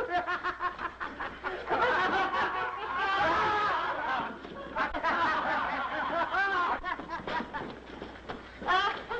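Men laughing, with quick staccato ha-ha pulses at first and then several voices laughing over one another.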